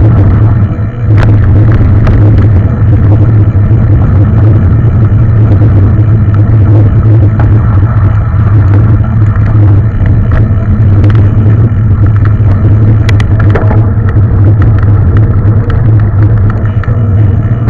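Mountain bike being ridden along a trail: a loud, steady low rumble with scattered clicks and rattles from the bike over rough ground.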